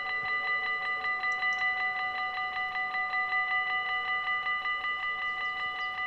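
Dutch level-crossing warning bell ringing in a fast, even rhythm of about five strokes a second, the signal that the barriers are closing for an approaching train.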